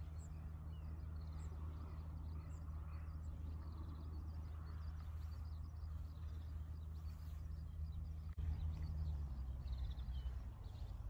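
Small birds chirping and calling in short, scattered notes over a steady low hum, which gets a little louder about eight seconds in.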